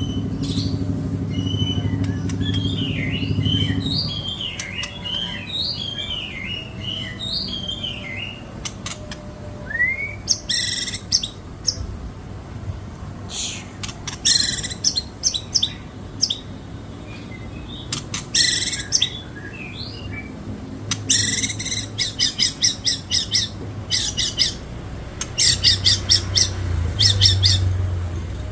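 White-rumped shama (murai batu) singing a long, varied song: whistled phrases and runs of sharp repeated chirps, its repertoire filled with mimicked calls of other birds. The phrases come thicker and louder in the second half, and a low hum underlies the first few seconds.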